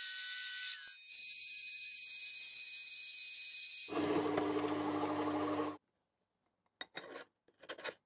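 Metal lathe machining a metal bar: a high-pitched whine and hiss as the bar is drilled. About four seconds in, this gives way to a lower, rougher cutting sound as it is turned, which stops abruptly. A few faint short clicks follow near the end.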